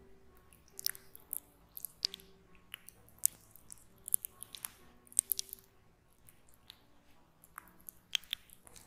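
Sticky, wet clicks and smacks of gel-covered fingers and palms pressing and rubbing close to the microphone. The clicks come irregularly, sometimes several in quick succession.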